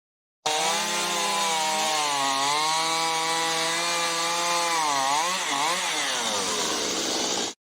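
Two-stroke chainsaw running at high revs with a steady whine. Near the end its pitch sags and recovers twice as it cuts through tree debris.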